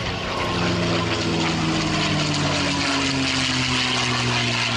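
P-51D Mustang's Packard-built Merlin V-12 engine passing at speed in a fly-by. The engine note drops in pitch as it goes by and then holds steady, over the rush of air.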